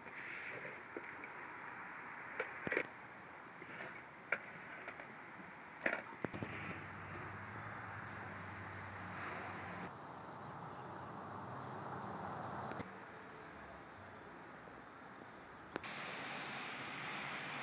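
Outdoor yard ambience: a short, high chirp repeating about twice a second over a steady hiss, with a low hum through the middle and a few sharp clicks in the first part.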